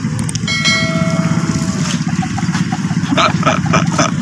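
A truck engine idling with a steady low rumble. About half a second in, one metallic ding rings out and fades over a second or so, and voices come in near the end.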